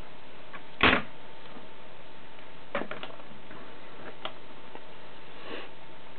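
A few irregular clicks and knocks of a small ferrite-core coil being set down and handled on a tabletop, the loudest about a second in, with smaller ones near three and four seconds in, over a steady hiss.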